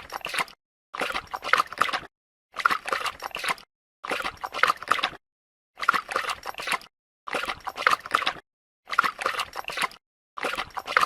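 Dog lapping water: quick wet laps in bursts of about a second, seven times, with short silent gaps between.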